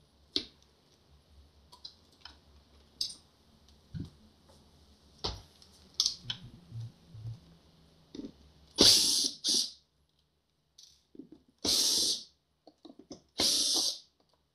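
Small cordless screwdriver running in three short bursts, driving out the screws that hold an electric unicycle's control board. Before them, scattered light clicks of wire connectors being handled and unplugged.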